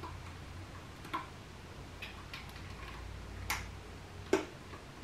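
Several short, sharp metallic clicks as fingers pry at the ring-pull tab on the lid of a coconut milk can; the loudest click comes a little over four seconds in.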